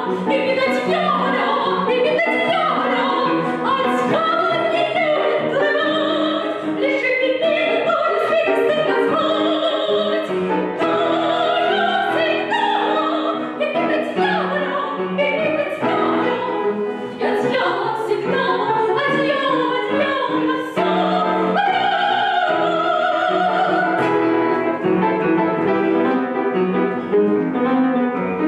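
Soprano voice singing an operetta song with vibrato, accompanied by piano.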